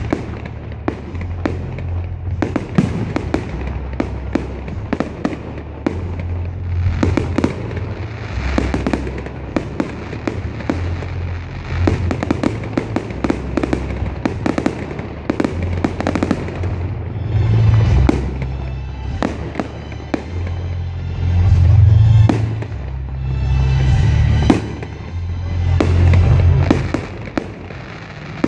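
Fireworks display: a fast, continuous run of bangs and crackles from aerial shells, over music with a heavy bass line that swells several times.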